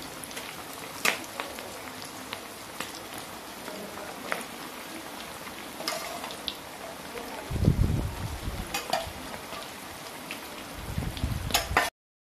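Turmeric- and rice-flour-coated beef lung pieces deep-frying in hot oil in an aluminium wok: a steady sizzle with scattered sharp pops, and a few dull knocks in the second half.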